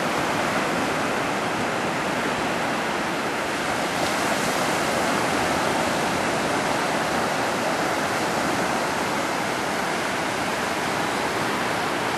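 Ocean surf breaking and washing up on a sandy beach: a steady rushing hiss without pauses.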